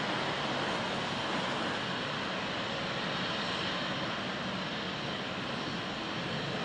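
Embraer E195LR twin-turbofan airliner taking off, its GE CF34 jet engines at takeoff power: a steady rushing engine noise with a faint even whine.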